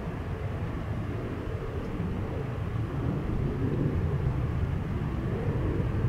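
Distant Boeing 767-300ER jet engines rumbling low and steadily on the takeoff roll, growing slowly louder.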